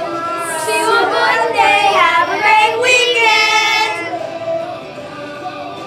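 Children singing, with long wavering held notes; it grows quieter about four seconds in.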